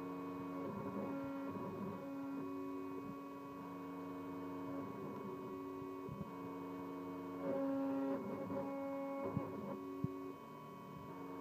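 Bravo Prodegy 3030 CNC router running as it mills the profile of a wooden tray: a steady spindle whine, with a set of stepper-motor tones that change pitch every second or two as the axes change speed and direction. A few brief clicks come near the end.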